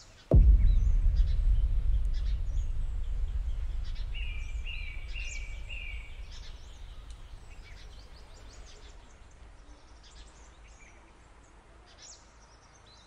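A deep cinematic boom hit just after the start, dying away slowly over several seconds, with bird chirps in the background; around four seconds in, a bird repeats a short call four times.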